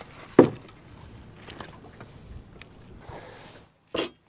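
A crappie being landed and handled on a boat deck. A short sharp sound comes about half a second in, then faint handling rustles and clicks, then two sharp knocks close together near the end.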